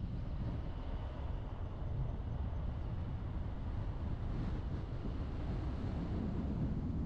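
Outdoor ambience: steady wind rumble on the microphone, with a faint hiss of distant road traffic.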